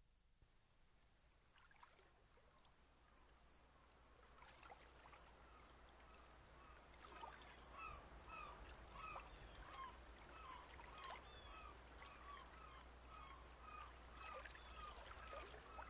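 Faint, slowly fading-in sound of lapping water, joined about six seconds in by a flock of birds calling in short repeated honks, a couple a second.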